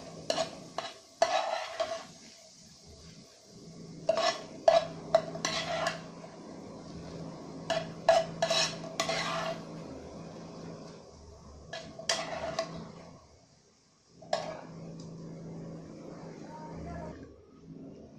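Spatula scraping and knocking against a nonstick frying pan in several short bursts as diced sausage is stirred and scooped out onto a plate.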